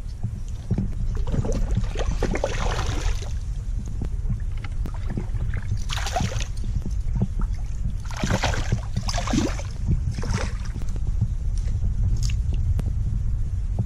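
A boat under way on open water: a steady low rumble with several bursts of splashing water.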